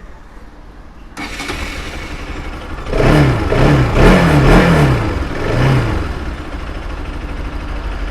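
Bajaj Pulsar RS200 single-cylinder engine starting about a second in, blipped four times, then settling to idle. Its valve clearances have just been reset with a feeler gauge to cure a tappet noise from the head.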